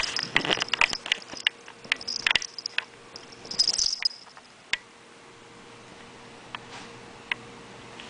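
Close-up rustling and clicking of a cat's fur and a petting hand rubbing against the camera, a dense run of sharp clicks and rustles that thins to a few scattered clicks after about five seconds.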